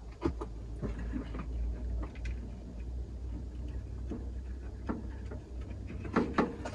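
Scattered light clicks and taps of small boiler parts being handled, with a small cluster of knocks about six seconds in, over a low steady hum.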